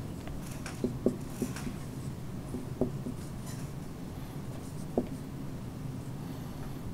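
Marker pen writing on a whiteboard: a few scratchy strokes and about five sharp taps as the pen tip meets the board, over a steady low hum.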